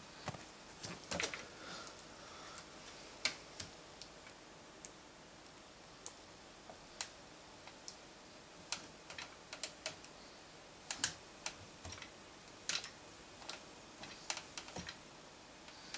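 Faint, irregular light clicks and taps from a plastic pipe-frame toy jungle gym as a toddler climbs and shifts her weight on it.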